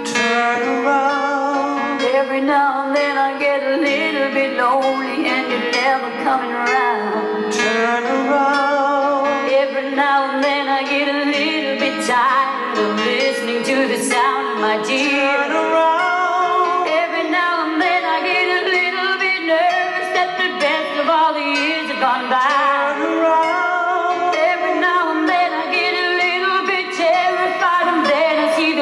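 Recorded pop song playing, a lead vocal singing over the band backing track.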